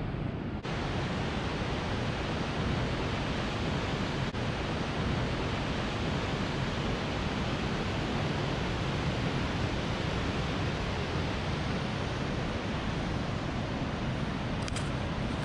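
Waterfall pouring into a rock gorge: a steady, even rush of falling water.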